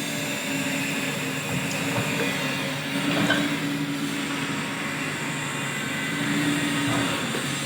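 Diesel engine of a JCB 3DX backhoe loader running steadily under work, with a brief clank about three seconds in.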